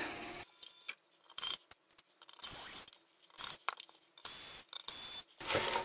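Metal-cased audio switch box being handled and turned over on a desk: a string of short scrapes and knocks, separated by near-silent gaps.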